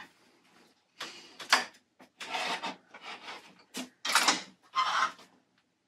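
Clothes being handled: fabric rustling and rubbing in about six short bursts as garments are moved and laid aside.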